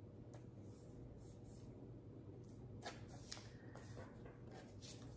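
Faint rustling of printed paper pattern sheets being handled, with a couple of soft ticks about three seconds in, over a low steady room hum.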